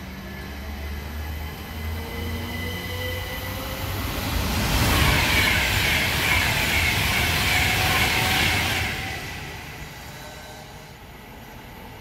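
Southern Class 377 Electrostar electric multiple unit pulling out and gathering speed, its traction motors whining upward in pitch and its wheels running on the rails. The sound is loudest in the middle as the carriages pass, then fades as the train draws away.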